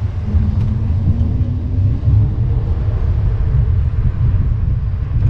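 Heavy wind buffeting on the microphone while riding an electric scooter, a loud, uneven low rumble, with a faint hum rising slightly in pitch a second or two in.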